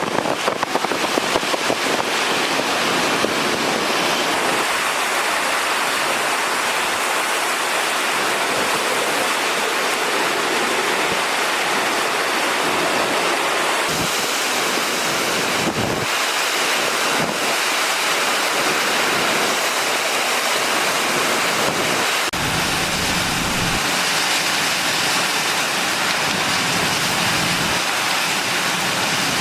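Category 4 hurricane wind with rain, a loud steady rushing noise that blasts against the microphone. A few brief knocks sound near the middle, and a deeper rumble of wind buffeting the microphone sets in about three-quarters of the way through.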